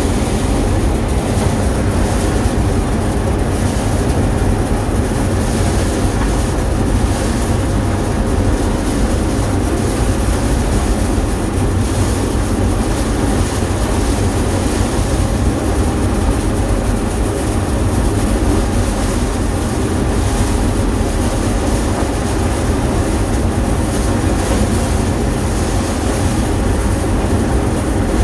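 A heavy farm machine's engine running steadily at working speed, a loud constant mechanical drone with no letup.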